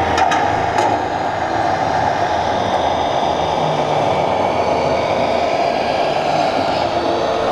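RC model Mercedes-Benz Actros tractor-trailer driving, a steady mechanical rumble over the noise of a busy exhibition hall. A few light clicks come in the first second.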